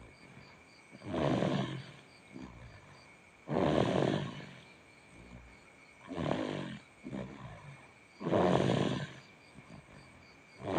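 Small child snoring in his sleep: a loud, rasping snore about every two and a half seconds, four in all.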